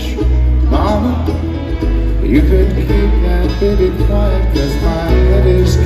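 Bluegrass band playing live: plucked acoustic string instruments over heavy bass, with a sung melody line.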